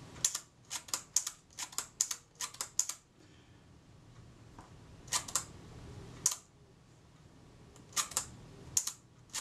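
A Kodak Retina IIIc's Synchro-Compur leaf shutter being cocked and fired by hand at its 1/8-second setting: a quick run of sharp small metallic clicks in the first three seconds, then a few more clicks and pairs of clicks. The firing is a test of the slow speed by ear after the retard gear train was adjusted, and the repairer judges it slightly fast.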